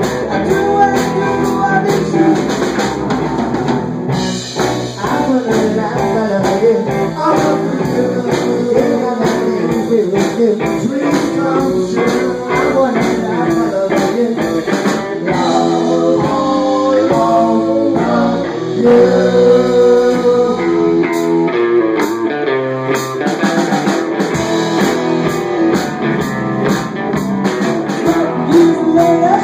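Live rock band playing: a woman singing into a microphone over electric guitar and a drum kit.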